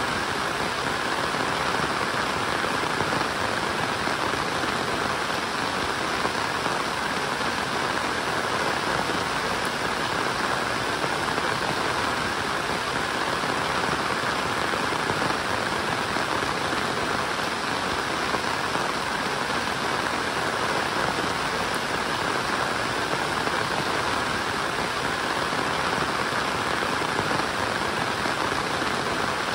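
Steady rain falling, an even, unbroken hiss with no let-up.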